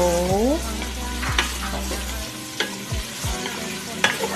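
Julienned carrots and sweet potato sizzling as they sauté in a stainless steel pot while a utensil stirs them, scraping and knocking against the metal pot a few times.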